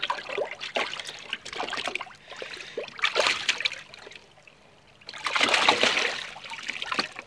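Water splashing and sloshing in a shallow plastic bowl as a koi is held by hand and thrashes, in uneven bursts, the biggest splash about five to six and a half seconds in.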